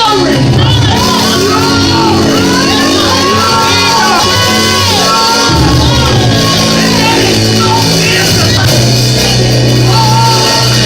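Loud praise music: voices singing and shouting over a band, with a deep bass part that comes in strongly about five and a half seconds in.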